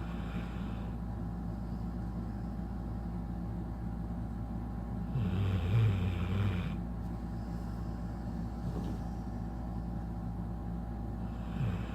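A sleeping LabraBull–Shih Tzu mix dog snoring, one snore at a time about six seconds apart: one at the start, a louder one lasting about a second and a half about five seconds in, and another beginning near the end, over a steady low hum.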